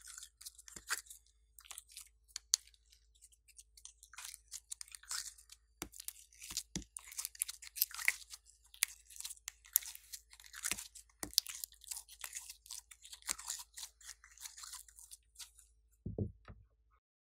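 Sticky slime being squeezed and pulled apart by hand and peeled out of a plastic mold: a dense run of irregular small crackles and clicks, with a few soft knocks.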